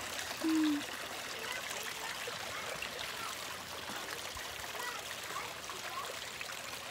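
Steady rushing, hissing noise like running water. A short low hum, like a brief voice, sounds about half a second in.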